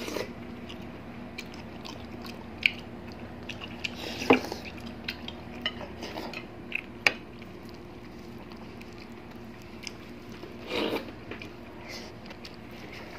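Spoons clinking now and then against glass bowls during eating, a few sharp clinks standing out, with soft eating sounds between. A low steady hum runs underneath.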